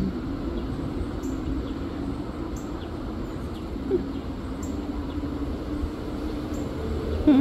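Wind gusting, rumbling steadily on the microphone, with a faint wavering low hum and a couple of short sliding tones.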